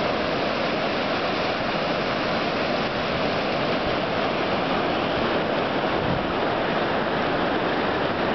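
Ocean surf breaking and washing in foam around shoreline boulders: a steady rushing wash.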